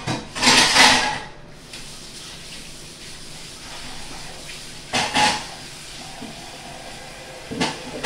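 Clear disposable plastic glove crinkling as a gloved hand works through grated cheese, in three noisy bursts: the loudest just after the start, others about five and seven and a half seconds in, over a steady faint hiss.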